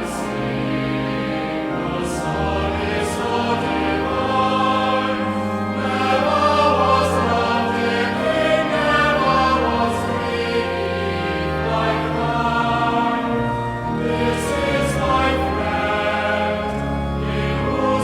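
Choir singing with sustained, slowly changing chords: background music.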